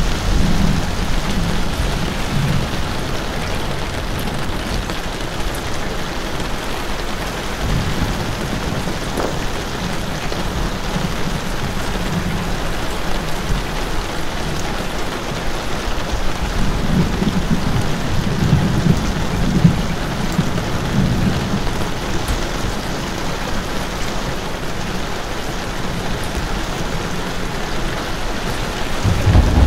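Steady rain falling, an even dense hiss, with low rumbles that swell and fade a few times, strongest about two-thirds of the way through.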